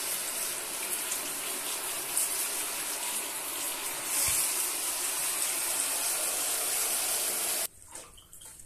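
Handheld shower head spraying water into a bathroom washbasin, a steady rush that gets a little louder about four seconds in and cuts off suddenly near the end.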